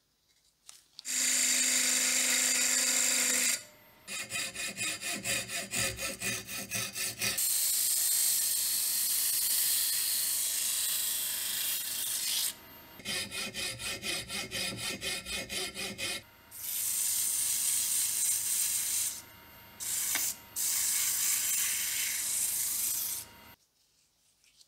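A small metal lathe spinning a wooden workpiece with sandpaper pressed against it: a steady sanding hiss alternating with stretches of rapid rhythmic rubbing, over the lathe's hum. The lathe stops about a second before the end.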